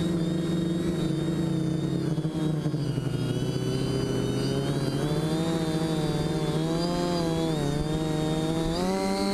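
Quadcopter's electric motors and propellers buzzing, heard close up from the onboard camera. The pitch rises and falls smoothly with the throttle, dipping about three seconds in and climbing again near the end.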